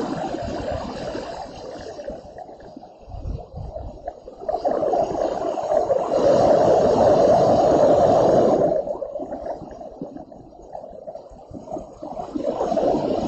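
Storm wind gusting, rising and easing, with its strongest swell from about five to nine seconds in.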